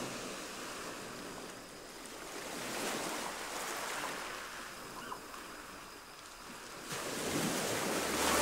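Ocean surf breaking on a sandy beach: a steady wash of waves that swells about three seconds in and builds again near the end.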